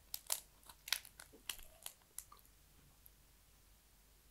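Crunching bites of Jagariko potato snack sticks being chewed, several sharp crunches in the first two seconds or so, then quiet.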